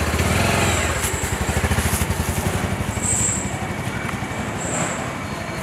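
A small engine running close by with a rapid, steady pulse, typical of a motorcycle or auto-rickshaw engine idling in street traffic.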